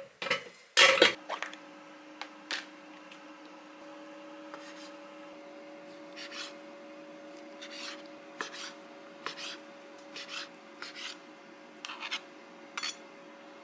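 A loud clatter about a second in, an air-fryer basket being pushed home, after which the air fryer's fan keeps up a steady hum. Over the hum, a chef's knife slices and dices raw chicken breast on a cutting board in a dozen or so separate short strokes.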